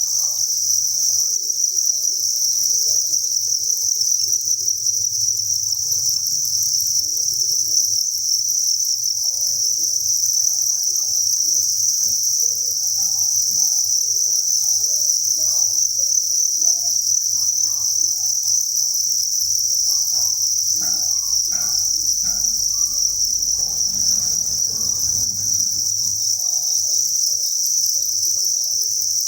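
Dense chorus of many farmed crickets chirping together, a steady unbroken high-pitched trill.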